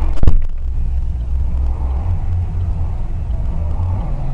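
Steady low rumble of a car driving, as picked up by a dashcam, with one loud sharp thump about a quarter second in.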